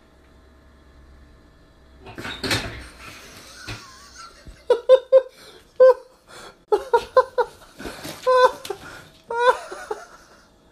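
A brief clatter about two seconds in, then a person laughing hard in a string of short bursts through the second half.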